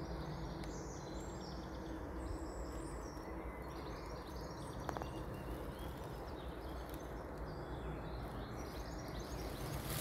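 Small birds singing and chirping throughout, over a steady low rumble of outdoor background noise.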